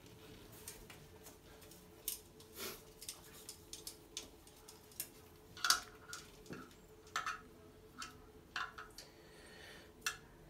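About a dozen light, irregular clicks and knocks, the loudest a little past the middle: an inspection camera's head and cable knocking and scraping against the porcelain of a drained toilet bowl as it is worked into the drain. A faint steady hum runs underneath.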